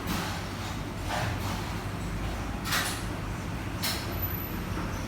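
Background ambience: a steady low hum with three short noises spread through it.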